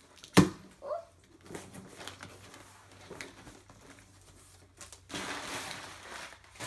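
A cardboard shipping box being opened: one sharp thump on the box about half a second in, a few light knocks and scrapes, then crinkly brown kraft packing paper crumpling as it is pulled out, from about five seconds in.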